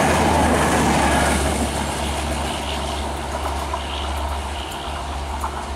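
Bangladesh Railway passenger coaches rolling past on the track, wheels on rails. The noise fades from about a second and a half in as the train draws away, leaving a low rumble.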